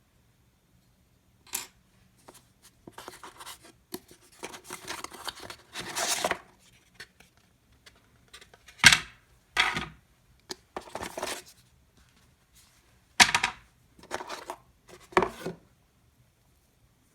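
Product packaging being opened by hand: scattered rustling and tearing of cardboard and plastic, in short irregular bursts. The sharpest bursts come about nine and thirteen seconds in.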